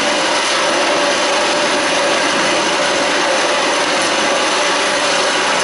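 Steady, loud splashing and churning water from a water polo drill in a pool, heard as the footage's own audio played back over the hall speakers.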